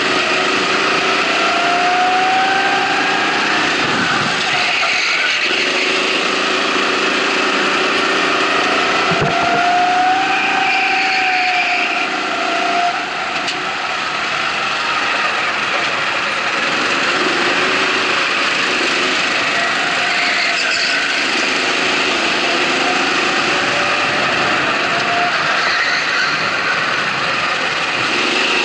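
Race go-kart's motor heard from on board, its pitch rising and falling again and again as it speeds up on the straights and slows into the corners, over steady wind and tyre noise.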